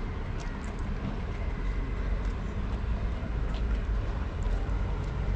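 Outdoor ambient noise dominated by a steady low rumble, with a few faint brief clicks.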